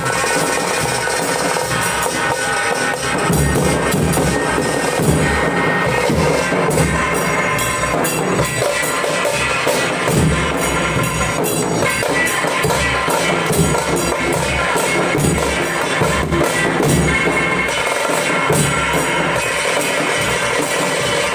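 Dhol drums beaten in continuous, loud, dense drumming, with deep repeated thumps under a busy clatter.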